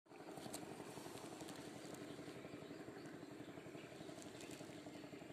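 Small boat engine running steadily with a fast, even pulsing beat.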